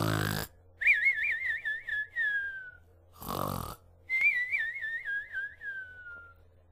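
Cartoon-style snoring from an animatronic bear's voice track: a short rasping snore in, then a long warbling whistle out that wavers and glides down, twice.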